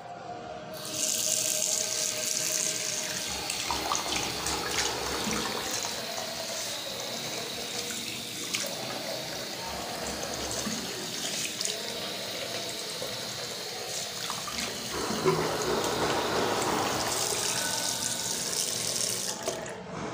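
Bathroom sink tap turned on about a second in, water running steadily into a ceramic washbasin and splashing over a hand held under the stream, then shut off just before the end.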